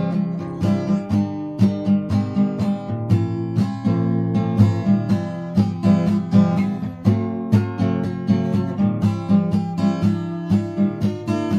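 Background music: acoustic guitar plucked and strummed in a steady, even rhythm.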